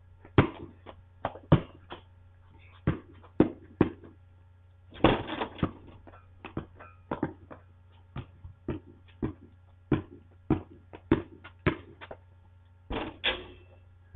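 Basketball bouncing on pavement and hitting the rim and backboard of a portable driveway hoop: a string of sharp thuds, coming at about two a second in the middle, with a longer noisy clatter about five seconds in and again near the end.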